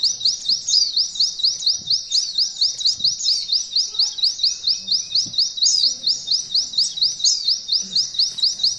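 Oriental white-eye (pleci) singing a long, unbroken canary-style trill: a short rising note repeated about five times a second, high and fast without a pause.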